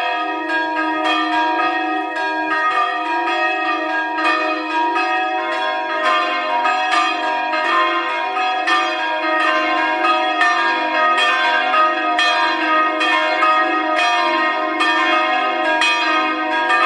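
Church bells: several bells ringing together in a full peal, their strikes overlapping and the tones hanging on between them. A deeper bell joins in about five seconds in.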